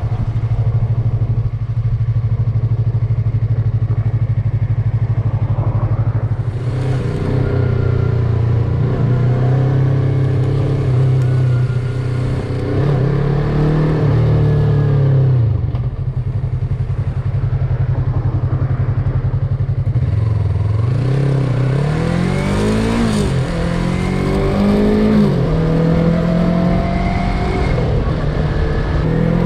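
Yamaha MT-03 motorcycle engine while riding. It holds a steady low note for the first several seconds, then the revs rise and fall again and again, with a few quick climbs in pitch late on as it accelerates.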